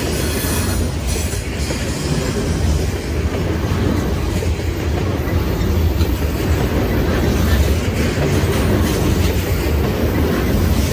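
Loaded covered hopper grain cars of a freight train rolling past close by: a steady, loud rumble of steel wheels on the rails, with occasional faint clicks as the wheels cross the rail joints.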